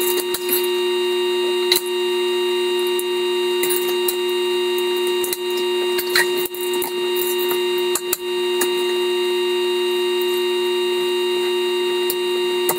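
Scattered sharp clicks and small knocks of Märklin model railway track sections being unclipped and handled, over a steady electrical hum.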